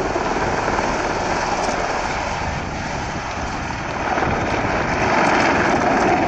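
AgustaWestland Apache AH1 attack helicopter hovering low, its main rotor beating over the run of its Rolls-Royce Turbomeca RTM322 turboshaft engines in a steady rumble that grows louder about four seconds in.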